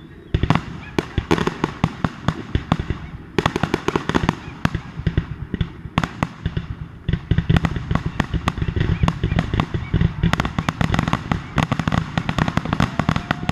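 Fireworks display: a dense, rapid string of firework bangs and crackling reports, several a second, with a brief lull about three seconds in.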